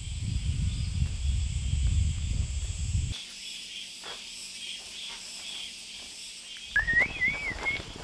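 Insects buzzing in a steady, high, continuous chorus. A loud low rumble runs under it for the first three seconds and stops abruptly. Near the end there is a short whistle that rises and then wavers.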